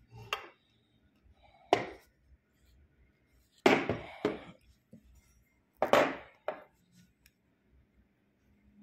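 Metal and glass instruments handled on a wooden desk: about four short, sharp knocks and clinks, the loudest about four and six seconds in.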